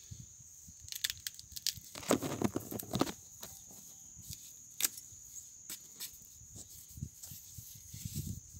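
Hands scraping and breaking up hard soil around a large cassava root and pulling it from the ground: scattered crumbles, scrapes and knocks, the busiest stretch about two seconds in. A steady high insect buzz runs behind.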